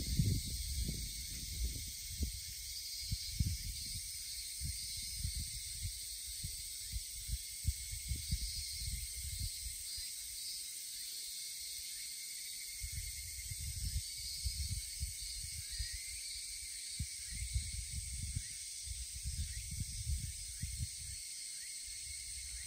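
Outdoor ambience: wind buffeting the microphone in irregular low gusts over a steady high hiss.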